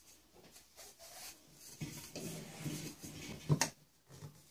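Black ABS plastic pipe fittings being handled and dry-fitted on a workbench: plastic rubbing and small knocks as a length of pipe is pushed into the fitting, with one sharp knock about three and a half seconds in.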